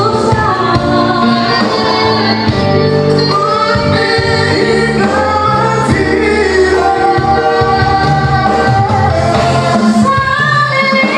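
A woman singing in a high, shrill voice into a microphone over a PA, with live band music behind her.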